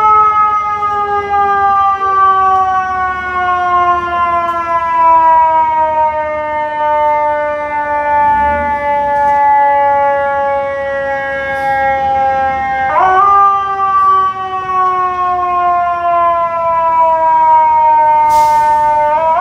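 A fire truck's mechanical siren slowly winds down in a long falling wail. About 13 seconds in it is spun back up quickly and starts falling again. A brief hiss comes near the end.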